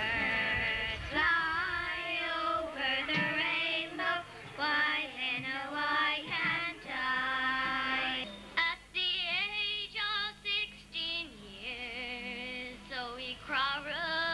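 Young children singing a song into a microphone, their voices holding and bending long notes.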